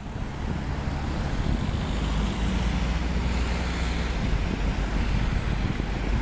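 Outdoor noise of wind rumbling on the microphone mixed with road traffic, a steady hiss that swells slightly in the first couple of seconds.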